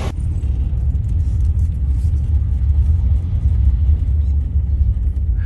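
Steady low rumble of a van driving, heard from inside the cabin.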